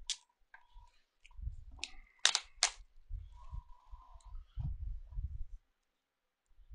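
A cardboard shipping box and the clear plastic bag inside it being handled as the bag is worked out of the box: a few sharp clicks and crinkles, the loudest a little over two seconds in, among dull bumps and knocks.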